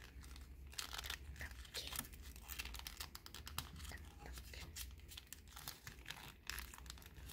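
Folded paper crinkling and rustling as the pieces of an origami spinning top are pressed and fitted together by hand: many faint, irregular crackles.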